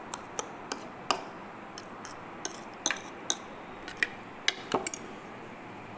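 Metal spoon clinking and scraping against a bowl while stirring mashed eggplant salad: a dozen or so sharp, irregular clicks.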